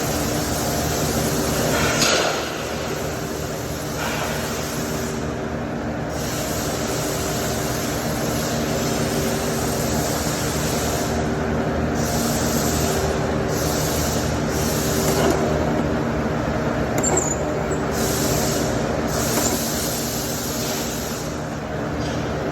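MIG welding arc on stainless steel, a steady crackling hiss laid down in runs of a few seconds with short breaks between them, over a constant machine hum.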